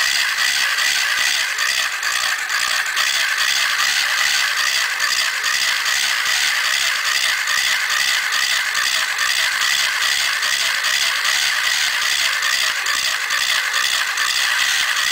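Small electric motor driving a plastic gear train in a model crawler tractor, running steadily with a fast, ratchety whir of gears.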